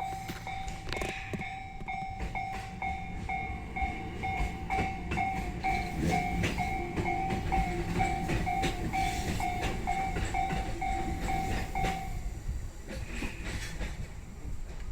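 Japanese railway level-crossing warning bell ringing its repeated two-to-three-strikes-a-second alarm tone while a train passes, wheels clicking over the rail joints. The bell stops about twelve seconds in, leaving the train's rumble and clicks.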